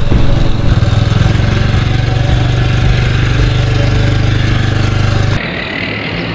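Motorcycle engine running steadily at low revs, close up. It stops abruptly about five seconds in, giving way to a quieter open-air background.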